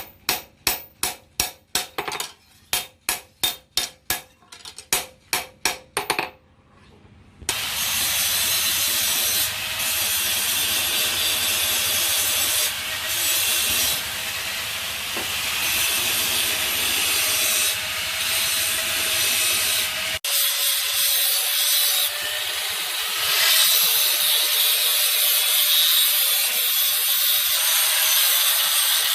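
Hammer blows on a steel knife blank, about three a second, for the first six seconds. After a short pause a power grinder runs steadily against the steel, with a faint motor whine, until the end.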